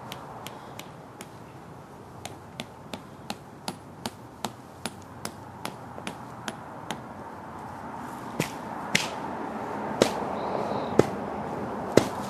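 Tent stake being hammered into the ground: a quick, even run of light taps, then heavier blows about a second apart near the end.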